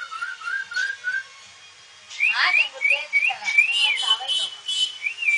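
White cockatoo whistling: a quick run of short notes at one pitch, a pause, then a string of higher notes that bend up and down.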